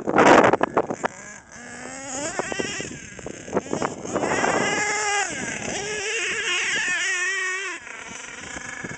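HPI Savage XL's K5.9 nitro engine revving as the truck drives off, its pitch rising and falling, then holding a steady high whine for about three seconds before dropping away near the end. A short loud rush of noise comes right at the start.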